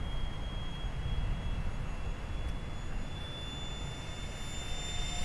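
Electric ducted fan of an RC jet in flight: a steady high whine that climbs slightly in pitch and grows a little louder near the end, over a low rumble.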